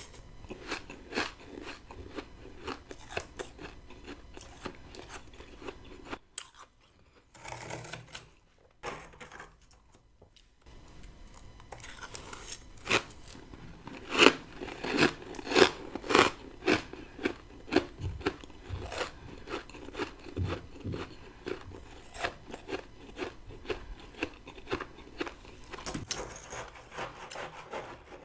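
Freezer frost crunching as it is bitten and chewed, a long run of crisp crunches. The loudest, fastest run of crunches comes about halfway through, after a few quieter seconds.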